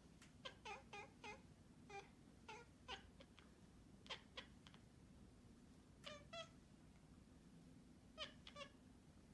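Orange-and-white domestic cat giving a string of quiet, very short mews, about a dozen of them in little groups of two to four.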